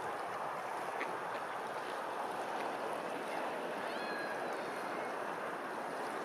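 Steady rush of flowing water, an even noise throughout, with a few faint short chirps about four seconds in.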